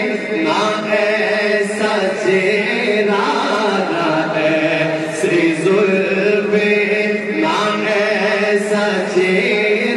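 A man singing a naat, an Urdu devotional poem in praise of the Prophet, in long held notes that bend and waver in pitch, with no instruments.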